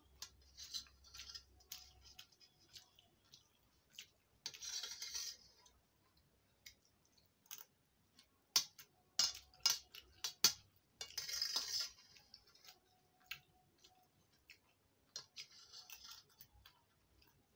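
Steel spoons clinking and scraping against a stainless steel plate as two people eat pasta: scattered sharp clinks, with two longer noisy stretches about five and eleven seconds in.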